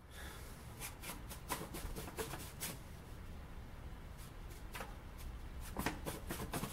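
Paper template crinkling and rustling as a hand presses and creases it against sheet metal: quiet, with runs of short crackles about a second in and again near the end.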